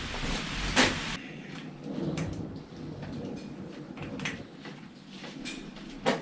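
Knocks and clicks of hands and tools working on a bicycle in a repair stand: a sharp knock about a second in, a few lighter clicks, and another sharp knock near the end.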